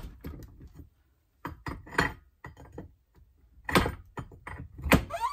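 Large steel combination wrench clanking and knocking on a stubborn fitting clamped in a bench vise as it is heaved on and repositioned: several sharp metal knocks with a short ring, the loudest near the end.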